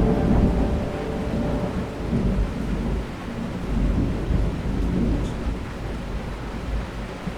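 Thunder rumbling low over steady rain, the rumble swelling and fading several times.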